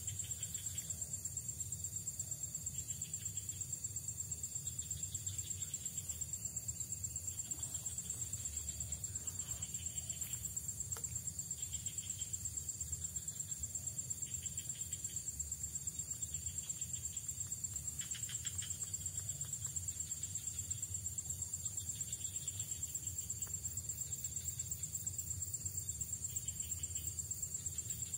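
Insects trilling: a steady, high-pitched, rapidly pulsing chirr that never lets up, over a low steady rumble.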